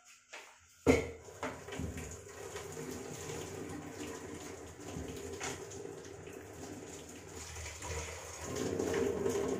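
Starchy cooking water being poured off boiled rice from a steel pot into a stainless steel sink: a sharp knock about a second in, then a steady splashing pour that grows louder near the end.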